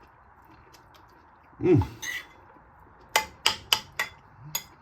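Cutlery clinking against a dish while eating: five sharp clinks in quick succession in the second half. Before them, about two seconds in, comes a short falling "ohh" of a voice.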